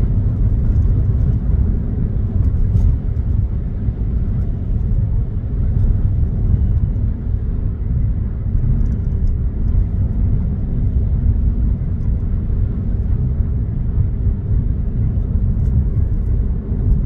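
Steady low rumble of a car driving, road and wind noise heard from inside the cabin, with a few faint ticks scattered through it.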